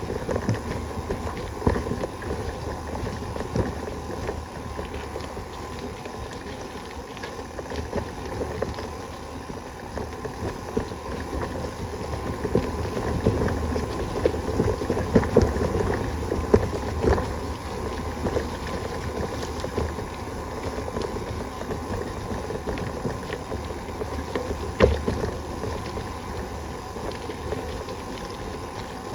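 Bicycle ridden over rough ground, with rattling and frequent knocks over a steady rush of wind on the microphone.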